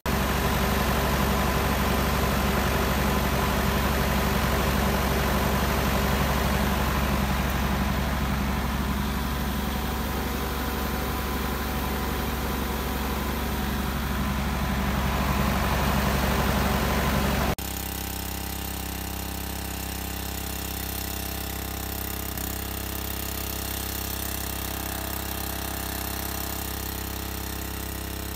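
Tractor engine running steadily while working a boom sprayer across a maize field. About two-thirds through, the sound drops suddenly to a quieter, steadier engine drone.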